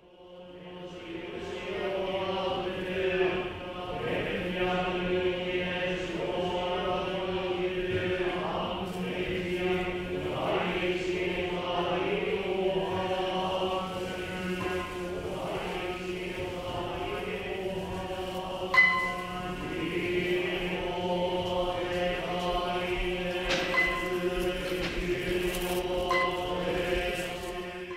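Background music of chanting voices over a steady low drone, in the manner of a Buddhist mantra, fading in at the start. A single sharp, briefly ringing strike comes about two-thirds of the way through.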